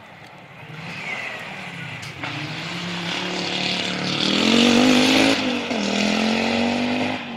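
Rally car engine pulling hard as the car approaches and passes at speed, rising in pitch to its loudest a little past the middle. Just after, the pitch drops briefly and then climbs again.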